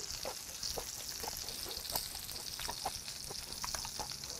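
Pieces of beef intestine frying in their own rendered fat in a pan over charcoal: a steady sizzle with many small crackling pops scattered through it.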